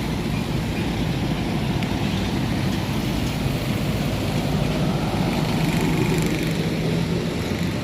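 Road traffic rumble as a large bus's engine draws near. A low engine tone grows stronger in the second half.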